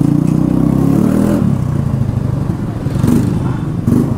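Exhaust of a Yamaha Fascino scooter's single-cylinder four-stroke engine running loud through an aftermarket Akrapovic-style silencer with the dB killer removed. Its note shifts with the throttle about a second and a half in and again around three seconds.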